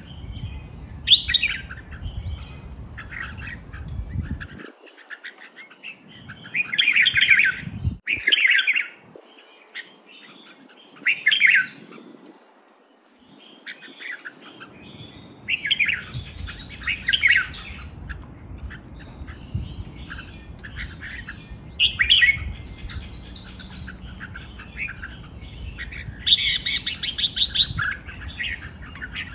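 Caged red-whiskered bulbuls singing: short, rapid, chirping song phrases come one after another, some loud and bright. A low rumble sits under the song for the first few seconds and again from about halfway through.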